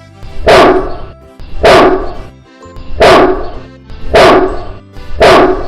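Great Dane barking five times, about a second apart, over background music.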